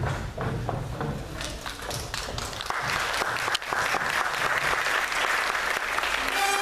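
Audience applauding: scattered claps at first, filling out after about three seconds into dense, steady applause.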